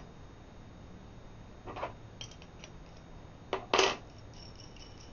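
A 7/16 wrench backing a 1/4-20 nut off a carriage bolt: a few light metallic clicks and clinks, the loudest a little under four seconds in.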